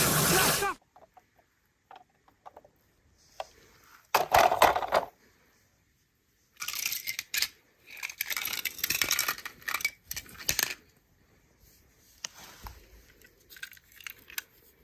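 A burst of hose spray cuts off within the first second; then small die-cast metal toy cars clink and clatter against each other and the concrete in a few bursts as they are tipped out of a fabric stocking and picked up by hand, with faint clicks near the end.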